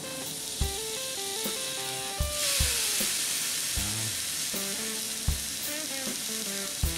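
Thinly sliced steak sizzling on a hot buttered griddle over a propane camp stove. The sizzle grows much louder about two seconds in as the meat goes onto the pan. Background music with a steady beat plays throughout.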